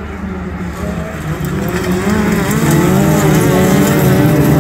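A pack of autograss racing saloon cars racing on a dirt track, several engines revving hard at once with overlapping notes rising and falling. The sound grows louder about two seconds in as the cars come close.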